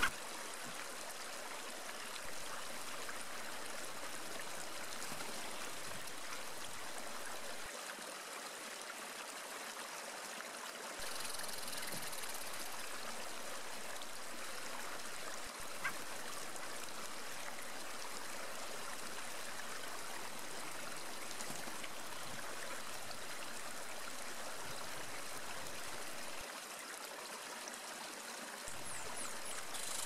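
Steady rushing of a flowing stream, an even hiss of water with a couple of small shifts in level.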